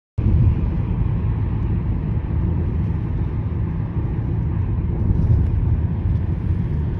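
Steady low rumble of outdoor background noise, cutting in abruptly just after the start.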